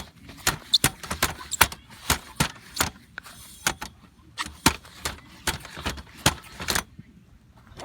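Fireworks going off in a rapid, irregular string of sharp pops and bangs, about twenty in six seconds, stopping shortly before the end.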